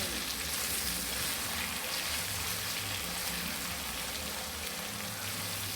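Chicken and chopped vegetables sizzling steadily in a hot pan as a stir fry is combined.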